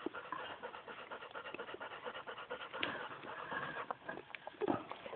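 Dogs panting close by, a quick, steady, breathy rhythm, with a few light knocks, the strongest near the end.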